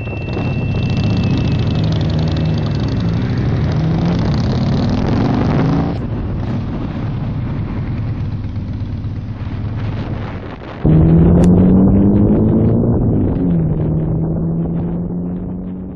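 Motorcycle engine heard from the rider's seat while under way, its pitch rising as it accelerates and dropping with gear changes, over a steady rush of wind and road noise. The sound jumps abruptly about six seconds in and again about eleven seconds in, louder after the second jump, and fades near the end.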